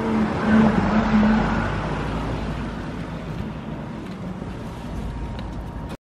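Fiat 500X driving past at close range, its engine hum and tyre noise loudest in the first second or two and then fading away.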